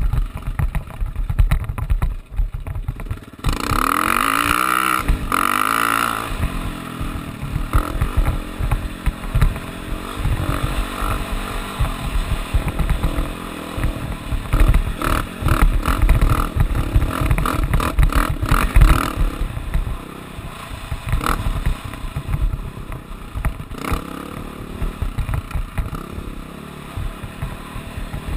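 Off-road vehicle engine running under way, with heavy wind buffeting on the helmet-mounted camera. About four seconds in, the engine revs up hard with a rising pitch, and it runs quieter in the last third.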